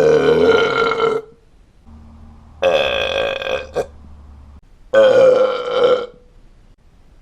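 A man belching loudly: three long, pitched burps of about a second each, with a short extra burp right after the second one.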